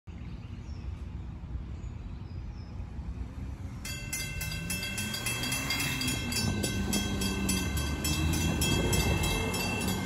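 Railroad grade-crossing warning bell starting up about four seconds in and ringing in rapid, even strokes as the crossing activates for an approaching train. Under it is a low rumble that grows louder.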